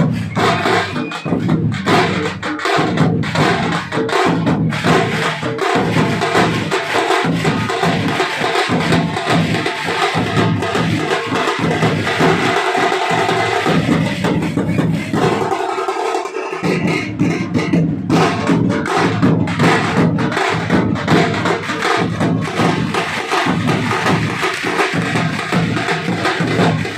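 Tasha drums beaten with sticks in a fast, dense, driving rhythm. A little past halfway the deep drums drop out for about a second, then the full beat comes back.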